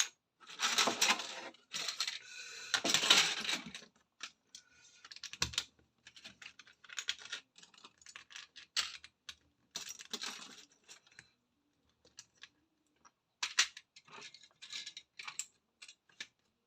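Loose LEGO pieces clattering and clicking as they are rummaged through and handled, with longer rattling bursts in the first few seconds, then scattered single clicks.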